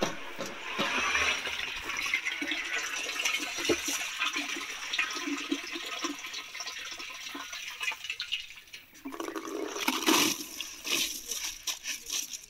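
Water sloshing and swishing as a bowl scoops soaked paddy out of a tub of water. Later, wet paddy grains pour from a perforated bowl into an aluminium pot, with a dense spatter of small ticks that is loudest near the end.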